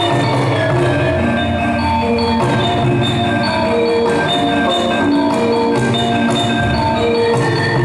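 Javanese gamelan music: bronze metallophones ring out dense, overlapping struck notes over low drum strokes.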